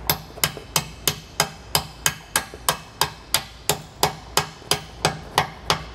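Hammer lightly tapping a bolt through a trailer shock absorber's upper eye and its mounting bracket, in a steady run of sharp taps about three a second. The bolt is being driven because the shock's pressure cocks it at an angle and makes it bind.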